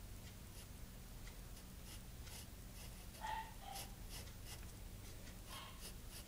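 Pencil scratching on sketchbook paper in short, light strokes. About three seconds in, a brief high squeak in two falling notes is the loudest sound, and a fainter one follows near the end.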